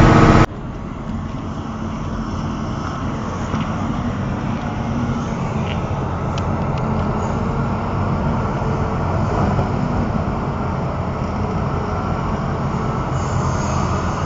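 Diesel engine of a Caterpillar 6040 mining excavator running steadily with a low rumble, a few faint clicks in the middle. A louder sound cuts off abruptly about half a second in.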